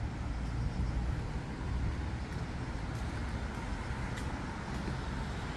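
Steady outdoor background noise, a low rumble with a hiss over it, with a few faint clicks scattered through.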